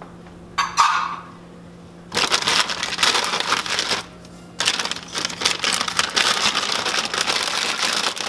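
A short clunk, then crinkling and rustling of a bag of chopped walnuts being opened and handled, in two stretches of about two and four seconds with a brief pause between.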